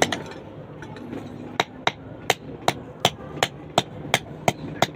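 Blacksmith's hammer striking metal in a steady rhythm, about two to three blows a second, starting after a short pause about a second and a half in.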